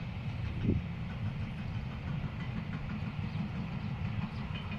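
Container flat wagons of a freight train rolling past: a steady, uneven low rumble of wheels on rails, with one thump about a second in.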